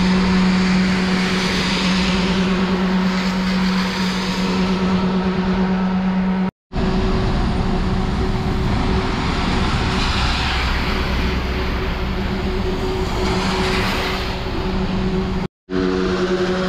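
A vehicle's steady motor hum with tyre hiss on a wet road, broken off twice for a moment.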